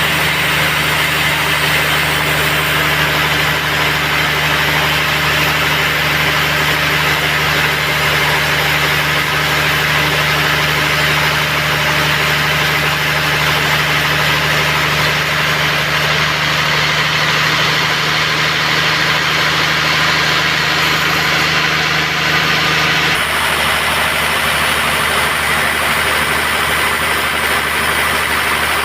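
Band sawmill running steadily: a constant machine drone with a dense hiss over it. The sound changes abruptly about 23 seconds in, one steady tone dropping out.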